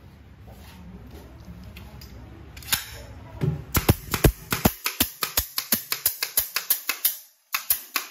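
A fast run of sharp impacts, about five a second, as parts of a wooden subwoofer cabinet are fastened together. A single sharp click comes before it, over a low steady hum in the first few seconds.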